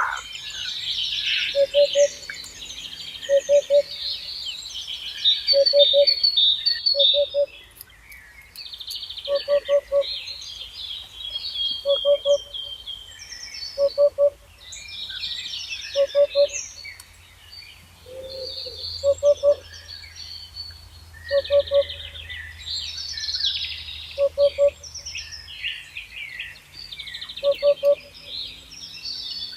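Birds singing and chirping in a busy chorus of high trills, with a frog croaking over and over in short groups of two or three low pulses.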